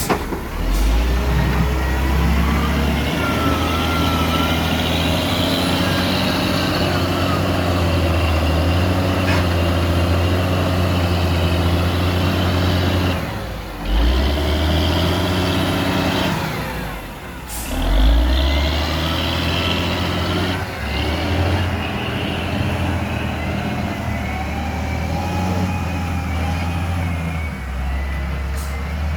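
Heavy diesel engine of a CAT 336D excavator running under varying load while digging, its low drone shifting in pitch. It dips briefly twice, about halfway through.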